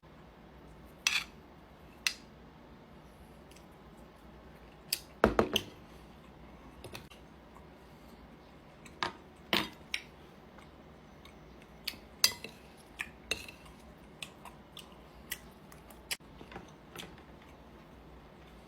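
Metal utensils clicking and clinking against a plate while steak is handled for eating: a dozen or so separate sharp clatters at irregular intervals, loudest in a quick cluster about five seconds in.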